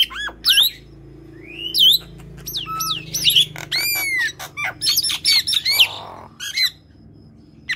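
An Asian pied starling and a common myna calling: a fast string of whistled notes that slide up and down, with harsh squawks mixed in. The calls die down about seven seconds in.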